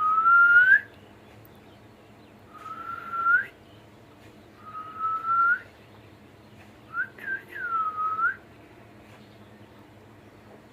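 Cockatiel whistling its song in four clear phrases a second or two apart: the first three are held notes that turn upward at the end, and the last is a couple of short chirps followed by a dipping note.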